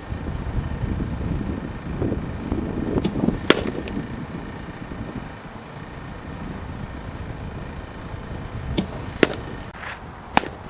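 Sharp cracks of a softball bat striking balls in batting practice, several of them, some in close pairs. Wind rumbles on the microphone through the first half.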